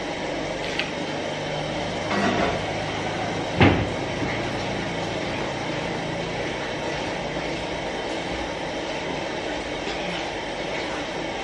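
A steady rushing background noise, with a louder crackle about two seconds in and one sharp snap about three and a half seconds in.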